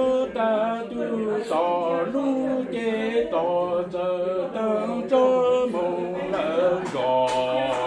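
A man singing Hmong lug txaj, unaccompanied sung poetry, in a chanting voice: phrase after phrase of long held notes that bend and slide in pitch.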